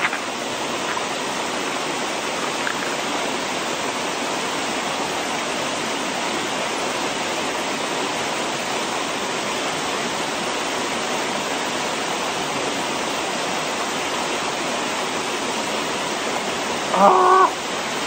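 Creek water spilling over a low stone dam, a steady rushing. Near the end, a brief voice sound of about half a second.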